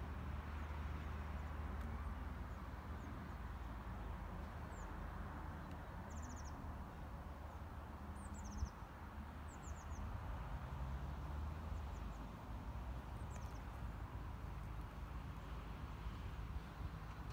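Outdoor ambience: a low, steady rumble under a soft hiss, with small birds giving short, high, falling chirps in quick little series scattered through the middle. There is one brief bump about halfway.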